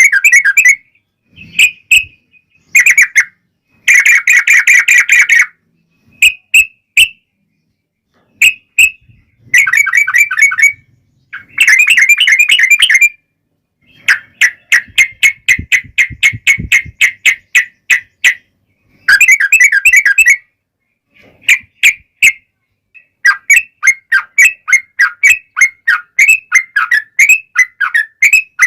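Sooty-headed bulbul (trucuk) song: short bubbly whistled phrases separated by brief pauses, then long runs of rapid repeated notes, the drawn-out fighting trill that keepers call ropel panjang.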